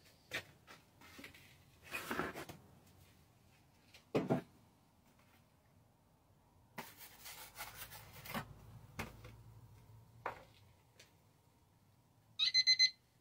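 Light knocks and a stretch of scraping handling sounds. Near the end comes a quick run of about five short, high electronic beeps as the buttons of a digital kitchen timer are pressed.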